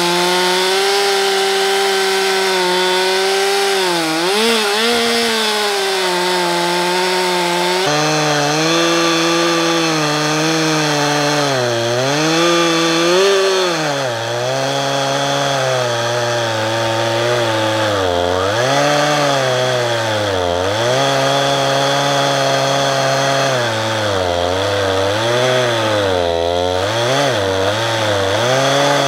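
Stihl MS 362 two-stroke chainsaw running at full throttle while ripping a log lengthwise in a chainsaw mill, its pitch sagging and recovering again and again as the chain loads up in the cut. The chain is new and sharp.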